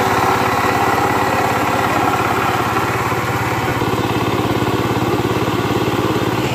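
Two-wheel power tiller's engine running steadily with a rapid, even firing beat as the machine pulls its cage wheels through a flooded rice paddy.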